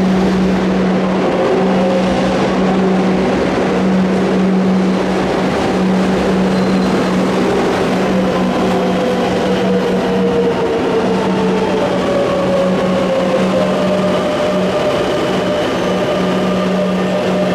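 Metro de Madrid Line 10 train running through the station: a steady loud hum and rumble, with a motor whine that slowly glides in pitch.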